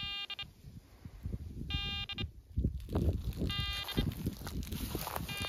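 An electronic area-scanning device (long-range locator) sounds a buzzy beep about half a second long, repeating roughly every two seconds while it runs in search mode. Between beeps there are footsteps and rustling in dry grass and leaves.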